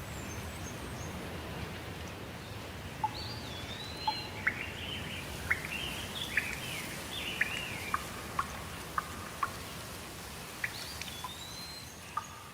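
Steady rain falling, with a songbird singing over it: a series of whistled calls that slide up and down in pitch, starting about three seconds in and fading near the end. Scattered sharp ticks, like drips, come through the rain.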